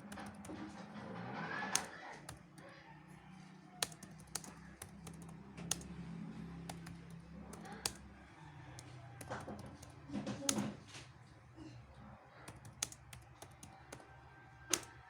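Keys being typed on a computer keyboard: an uneven run of separate keystroke clicks, with a steady low hum underneath.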